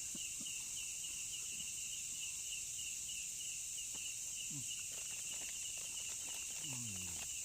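Chorus of forest insects: a steady high buzz with a rapid, even pulsing chirp beneath it.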